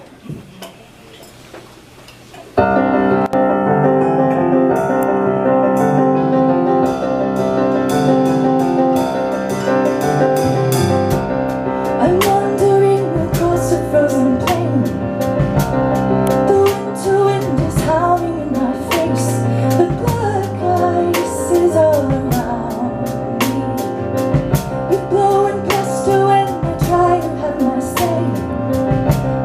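A live song starts about two and a half seconds in: a rhythmic instrumental accompaniment with evenly repeated strokes, and a singing voice joins about twelve seconds in.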